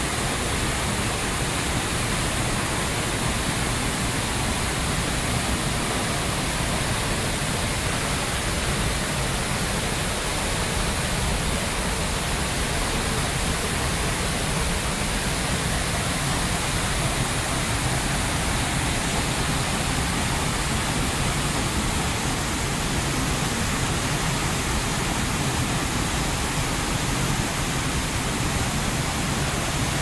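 Waterfall in full flow, heard close up from the rock cave behind the falling curtain of water: a steady, unbroken rush.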